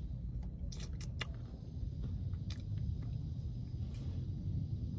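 Mouth sounds of someone drinking a milkshake, a few short sharp slurps and lip smacks, over a steady low rumble inside a car.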